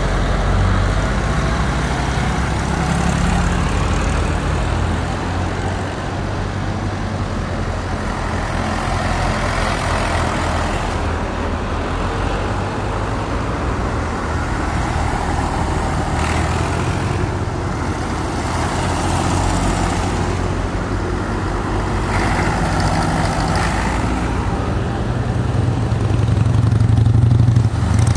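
Vintage tractor engines running as tractors drive past one after another, getting louder near the end as one passes close.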